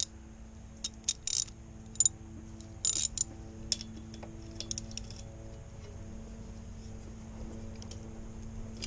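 Metal clicks and clinks of a 17 mm wrench or socket being fitted to and worked on a tight oil plug of a motorcycle engine, scattered over the first five seconds. A steady low hum runs underneath.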